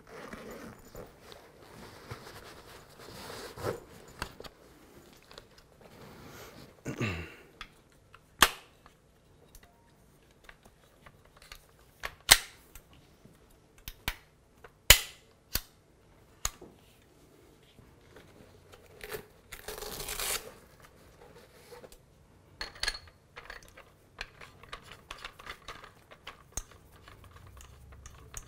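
Handling noise as a sling pack is opened and a folded double-fold AR-15 pistol is pulled out, then a series of sharp metallic clicks and snaps, a few seconds apart, as the rifle's folding hinges are swung open and locked. A longer rasp sounds about twenty seconds in.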